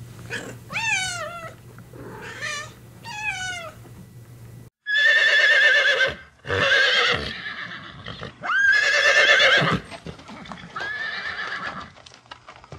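A domestic cat meows three times, short rising-and-falling calls. After a sudden cut, horses whinny: three long, loud neighs followed by a fainter fourth.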